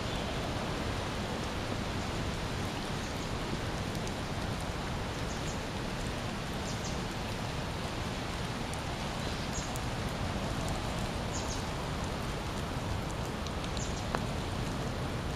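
Steady rain falling on floodwater and wet ground: an even hiss with scattered faint drop ticks.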